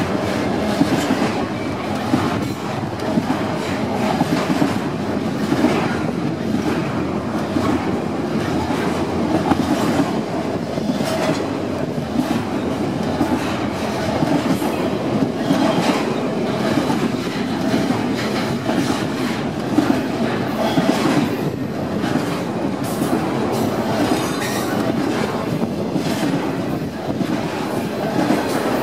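Double-stack intermodal container train rolling past close by: a steady rumble of steel wheels on the rails with frequent irregular clicks and clatter from the well cars.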